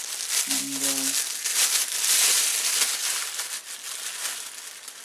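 Plastic bag crinkling as hands rummage in it for small metal nuts, loudest about two seconds in.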